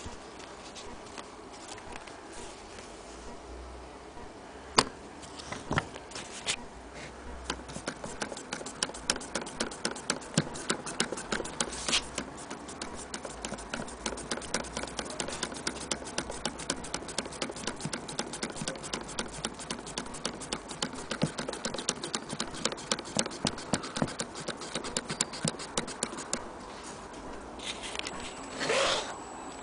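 Antique Willcox & Gibbs chain-stitch sewing machine running, stitching through cloth with a fast, even clicking from its needle mechanism; the clicking sets in about a quarter of the way in after a few single clicks, and stops shortly before a brief louder rustle near the end.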